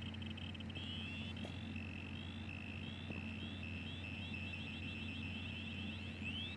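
Piezo buzzer in an Arduino-driven arc grenade prop playing its arming sequence. Quick, even high beeps give way, about a second in, to short rising chirps that come faster and faster over a held beep tone. It ends in a longer rising sweep near the end.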